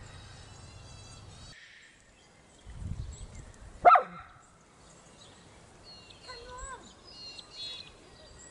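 A small dog, the toy poodle, gives one short sharp yap about four seconds in, the loudest sound here. Birds chirp faintly around it.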